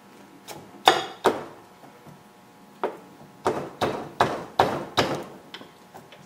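Sharp metal knocks as a piston clamped in a ring compressor is tapped and worked down into the air compressor's cylinder: two about a second in, then a quicker run of five or six in the second half.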